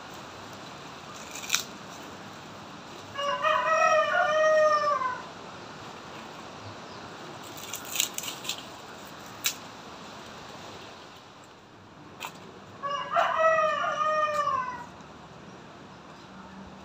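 A rooster crows twice, each crow lasting about two seconds, about nine seconds apart. Between the crows come a few short, sharp cracks, as of dry sticks being handled.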